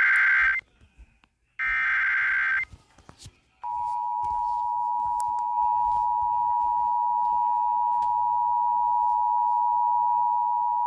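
Emergency Alert System signal for a flood warning. Two short screeching SAME header data bursts, each about a second long, are followed about three and a half seconds in by the steady two-tone attention signal.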